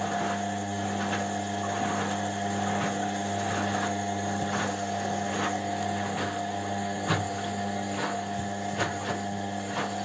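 Indesit front-loading washing machine running its wash cycle, the drum turning the laundry with a steady motor hum and whine. Scattered light clicks and knocks come through, with one sharper knock about seven seconds in.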